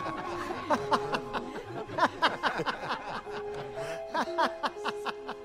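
A crowd of spectators laughing in overlapping bursts over steady held notes of background music.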